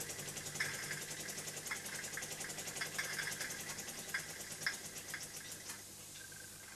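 Tony Wright 'dairy' toy steam engine running: its small brass oscillating cylinder gives a fast, even train of steam chuffs over a hiss, with occasional sharp ticks. The sound fades out near the end.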